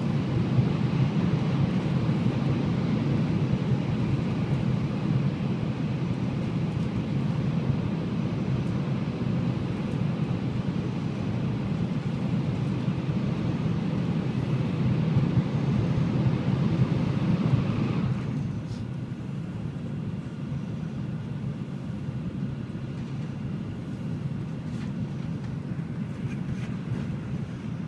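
Cabin noise of a Shinkansen bullet train running at about 280 km/h: a steady, rushing rumble. It is louder and hissier at first, as in a tunnel, and drops suddenly about two-thirds of the way through as the train comes out into open air.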